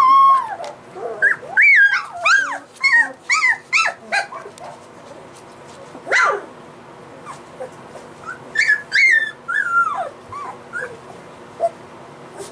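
Three-week-old golden retriever puppies whimpering and yelping in short, high squeals that bend up and down in pitch. They come in a quick run over the first four seconds, once more around six seconds, and in another run around nine seconds.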